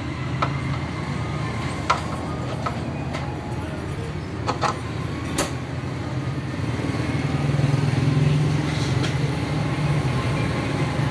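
Scattered sharp metallic clicks and taps of hand tools on metal, a handful in the first half, as shock absorber mountings are worked on, over a steady low hum of motor traffic.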